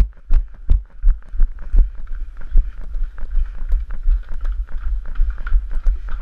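Running footfalls of a head-mounted-camera wearer on stone paving: heavy low thuds about three a second, becoming lighter and closer together in the second half as the runners climb stone steps.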